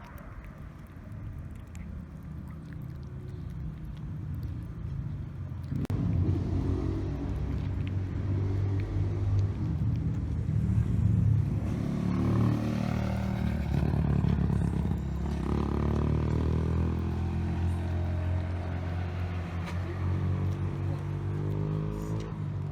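A motor vehicle's engine running close by. It grows much louder about six seconds in and keeps going, with its pitch rising and falling.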